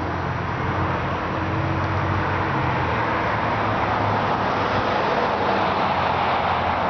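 A car engine running steadily, with a low hum under an even road-noise hiss that grows slightly louder toward the end.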